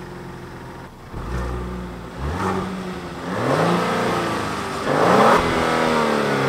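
Genesis GV80's 3.5-litre twin-turbo V6 idling just after start-up, then revved in a few blips that climb in pitch and fall back. The last and loudest comes about five seconds in.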